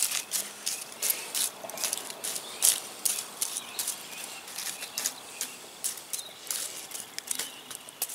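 Campfire crackling, with irregular sharp pops and snaps several times a second.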